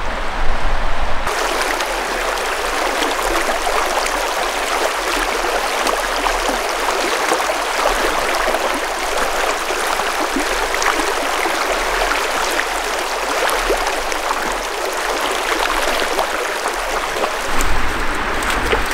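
Shallow river rushing over rocks: a steady, dense hiss of running water with splashing from someone wading through it on foot. The rushing comes in abruptly about a second in and falls away near the end.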